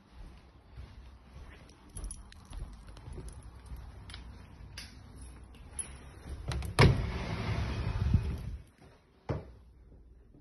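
An interior door being opened by hand: footsteps and handling noise, then a sharp latch click about two-thirds of the way through, followed by a couple of seconds of rustling with keys jangling, and another sharp click shortly after.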